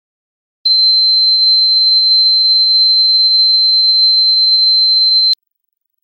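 Dog whistle tone: one steady, high-pitched pure tone at an unchanging pitch, lasting a little under five seconds. It starts just under a second in and cuts off abruptly with a click.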